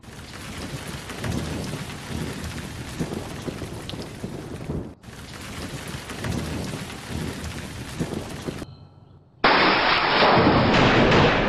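Rain-and-thunder storm sound effect: a steady rushing hiss with low rumbles that cuts off abruptly after about eight and a half seconds. After a short gap, a much louder rushing noise starts suddenly near the end.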